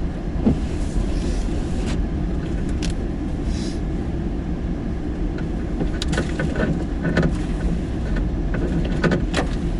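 Ford F-250 Super Duty pickup with a truck camper creeping through deep snow, heard from inside the cab as a steady low rumble of engine and tyres. Tree branches scrape and snap against the truck several times along the way.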